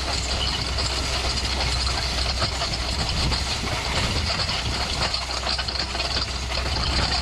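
Tractor engine running steadily while pulling a hay rake, with a constant hiss of machinery and wind noise over the low engine hum.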